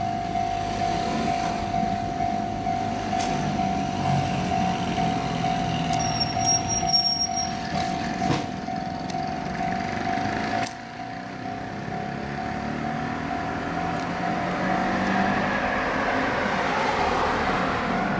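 Japanese railway level-crossing warning alarm ringing in a steady repeating tone, with rail and traffic noise behind it; a brief high whistle-like tone comes about six seconds in. After an abrupt drop about eleven seconds in, the alarm keeps ringing and the noise of an approaching train builds toward the end.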